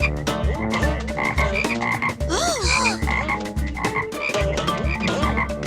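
Cartoon croaking, frog-like noise from an ice cream truck's sound system of noise-making gadgets, meant to play an ice cream tune but making a weird sound instead. It comes over a steady low pulse with swooping up-and-down tones and repeated high blips.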